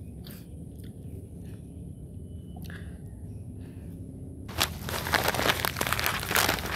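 Plastic snack packaging crinkling as it is handled, starting about four and a half seconds in after a few faint clicks.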